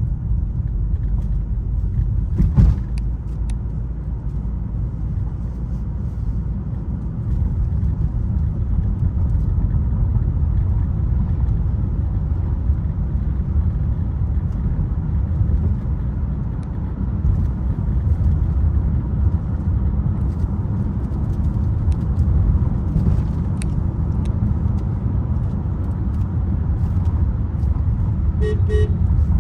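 Steady low rumble of a Mitsubishi Outlander on the move, heard inside the cabin. There is a single sharp click about two and a half seconds in, and two short car-horn toots near the end.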